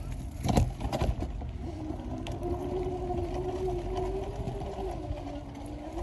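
Mountain bike rolling along a dirt trail: steady tyre and wind rumble, with a few knocks from bumps in the first second. From about a second and a half in, a steady humming tone runs on, dipping slightly in pitch near the end.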